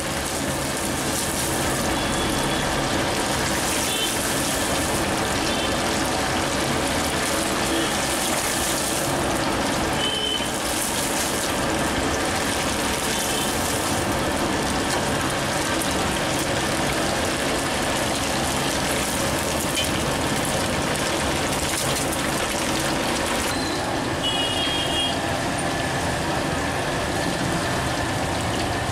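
Deep-frying: hot oil in a large steel kadai sizzling and bubbling steadily around battered pieces, an even hiss with no breaks.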